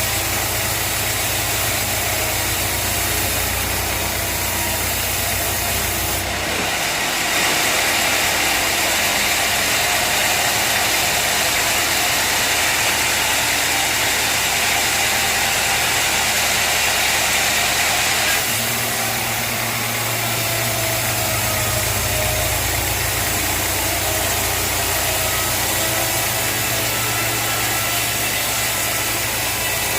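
Sawmill engine running steadily, with a louder hissing stretch from about six to eighteen seconds in.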